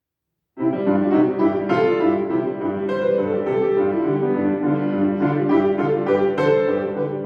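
Solo piano playing a lively polka-galop, starting suddenly about half a second in, with a regular bouncing bass under the chords and melody.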